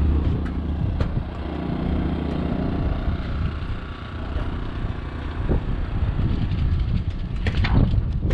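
An engine running at a steady idle, with a few sharp clicks and knocks near the end.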